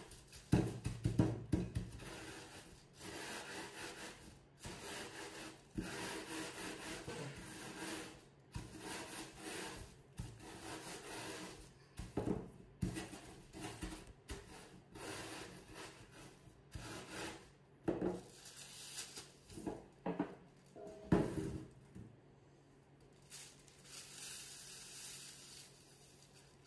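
Wooden rolling pin rolled and pressed back and forth over biscuits in a plastic bag, crushing them to crumbs in repeated uneven scraping, crunching strokes with plastic rustling. The strokes ease off near the end.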